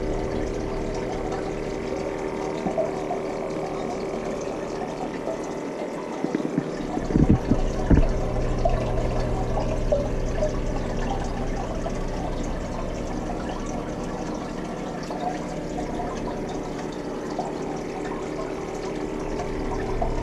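Aquarium filter and aeration running: steady water bubbling and trickling over a low hum. A few knocks come about seven to eight seconds in.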